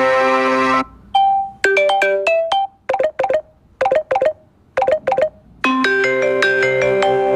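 Samsung Galaxy Note 5 stock ringtones playing one after another. A sustained chord melody stops within the first second. A run of short, quickly fading notes follows, repeating in groups of three. A little past halfway, another sustained chord melody begins.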